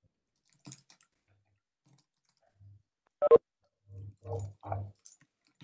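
Clicks picked up by a computer microphone: a faint click, then one sharp loud click a little past halfway, followed by three short, muffled low thumps.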